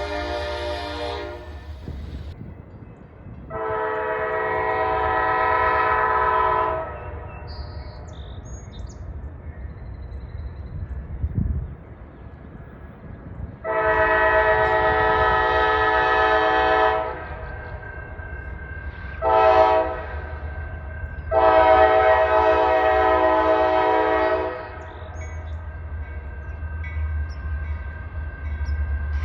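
Locomotive air horn sounding the grade-crossing signal, long, long, short, long, each blast a steady chord, over the low rumble of the passing train. The tail of an earlier blast cuts off about a second in.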